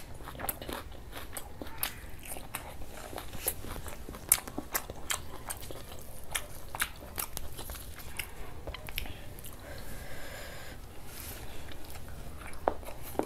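Close-miked chewing and wet mouth sounds of a person eating curried mutton and chicken liver with dal puri by hand, with many sharp clicks and smacks. A soft fried dal puri is torn apart by hand partway through.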